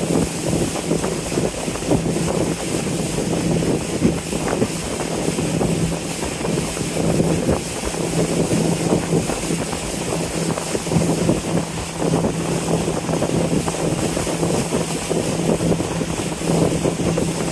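A river cruise boat under way: a constant low engine drone under the rush of wind and water as the boat moves along steadily.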